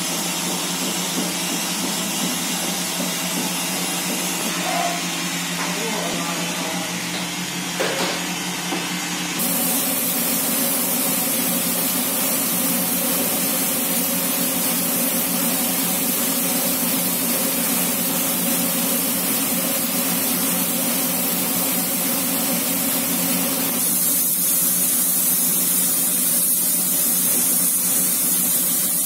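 Compressed-air spray gun hissing steadily as paint is sprayed onto a car's panels, starting about nine seconds in and growing louder near the end, over a steady low hum. Before the spraying, quieter handling sounds with a light knock as liquid is poured into the gun's cup.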